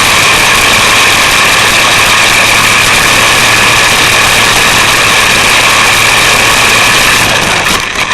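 WLtoys A969-B RC truck's electric motor and gears whining steadily at speed, heard very loud from a microphone riding inside the truck's body, over a rushing noise. The sound fades out near the end.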